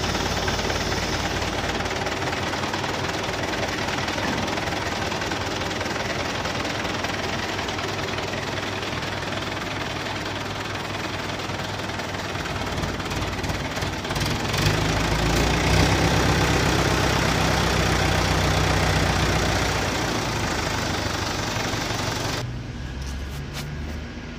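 Mobile crane's engine running steadily while the crane lowers a heavy screw conveyor on its hook. It gets louder and deeper from about 14 to 20 seconds in, then drops off sharply near the end.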